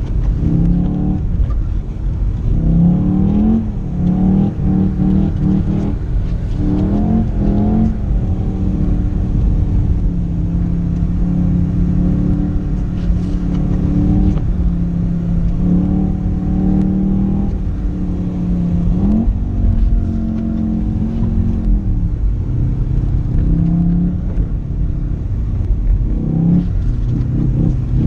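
Car engine heard from inside the cabin, revving up and easing off again and again as the car is driven hard through turns on snow, over a steady low rumble.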